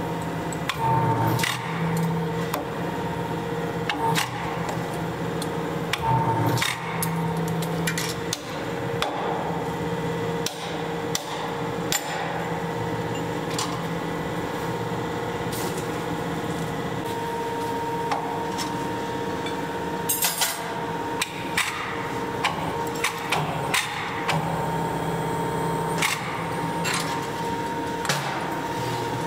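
Forging press running with a steady hum while a hot axe head is worked in its dies, with irregular metal clanks and knocks from the tongs, workpiece and tooling, loudest about a second in and again around six seconds in.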